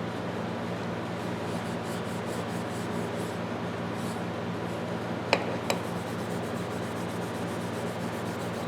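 Grade 1/0 steel wool rubbing over the blued steel of a pair of pliers, a steady scratchy scrubbing that polishes the bluing to a shine. Two short sharp clicks about five and a half seconds in.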